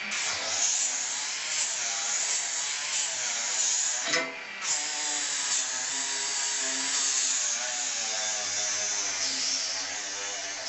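A handheld power tool running steadily on a workpiece, its pitch wavering, with a brief sharp knock about four seconds in.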